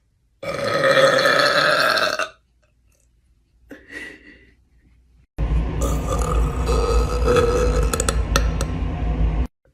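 A woman burping: one burp of about two seconds, a short faint sound, then a long burp of about four seconds.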